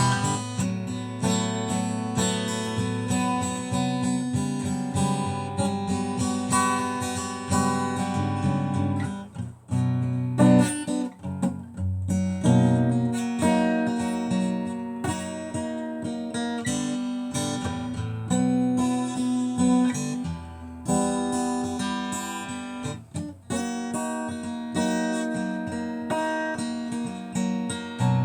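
Acoustic guitar playing an instrumental passage of strummed and picked chords, with brief breaks about nine and a half and twenty-three seconds in.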